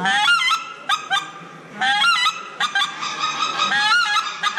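Hand-blown goose call sounded in quick runs of short honks and clucks, a few calls to a run with brief gaps between, mimicking the calling rhythm of wild geese.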